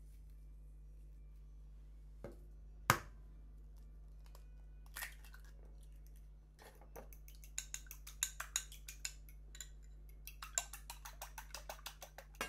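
A sharp knock about three seconds in, then a raw egg being beaten in a small glass bowl: quick, light clicks of the utensil against the glass, several a second, in two runs through the second half.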